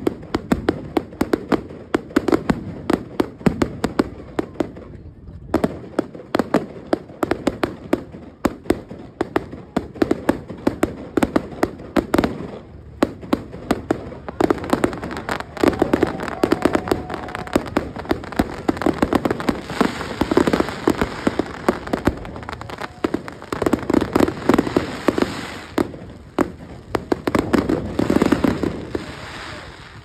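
Fireworks display: a rapid, continuous stream of bangs and crackles, growing denser and more crackly from about halfway through.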